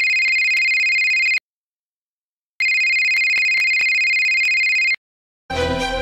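Phone ringtone: two long rings of about two seconds each, a steady high two-pitch tone, with a pause of about a second between them. Music comes in near the end.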